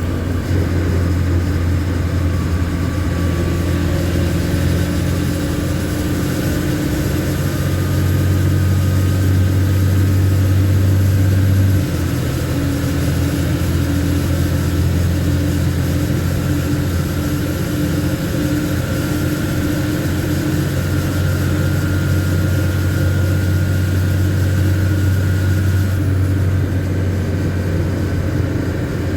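LMTV military truck's diesel engine running while the truck is driven, a steady low drone. The engine note and level drop slightly about twelve seconds in.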